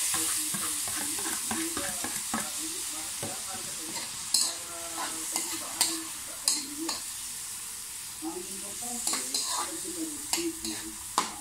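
Chopped tomatoes sautéing in hot oil in a wok: a loud sizzle that eases off gradually, with a spatula stirring and scraping against the pan now and then.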